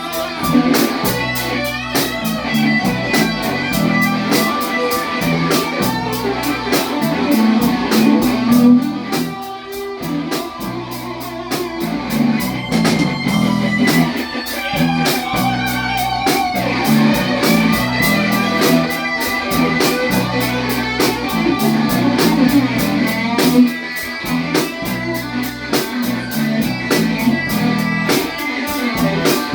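Live blues-rock band playing an instrumental break: an electric guitar lead line over bass and a steady drum beat.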